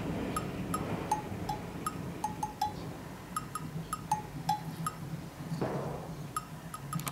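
Light, playful background music of short, plinking percussion notes in a bouncy rhythm, over a steady low background noise that swells briefly near six seconds.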